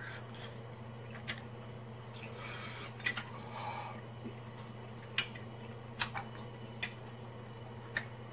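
A man eating: about eight sharp clicks and smacks spread out over the stretch, with a couple of soft breathy puffs near the middle, over a steady low hum.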